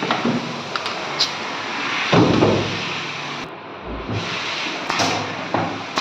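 Workshop handling noise: wooden strips and offcuts knocked and laid down on a wooden workbench. Irregular thuds and sharp clicks, the heaviest thud about two seconds in.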